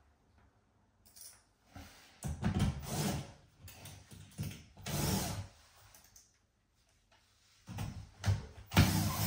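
Compact cordless drill-driver run in several short bursts while fixing a pipe clip for copper pipes to the wall. The loudest burst starts near the end.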